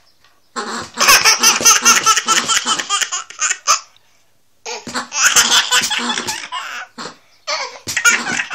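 Baby laughing hard in quick, repeated peals. There are two long fits of about three seconds each with a short pause between them, and the laughter starts up again near the end.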